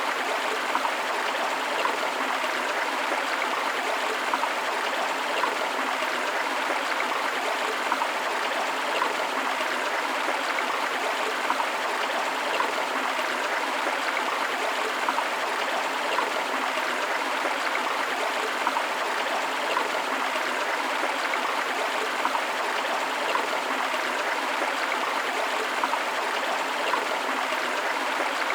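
Forest stream flowing steadily over rocks, a continuous rushing with small splashing and gurgling detail.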